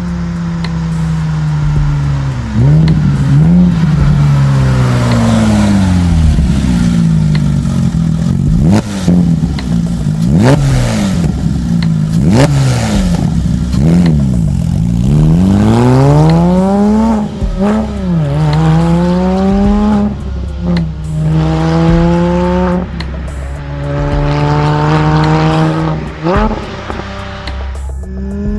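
Porsche 997 GT3's 3.6-litre flat-six breathing through a Fabspeed performance exhaust (sport headers, muffler bypass pipes, Maxflo rear mufflers). The revs rise and fall in quick sweeps over and over, then climb in longer pulls that drop back sharply at each upshift in the second half.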